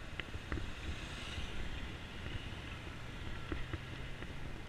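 Wind buffeting the microphone of a bicycle-mounted action camera while riding, over a low rumble of street traffic, with a few sharp light clicks from the bike.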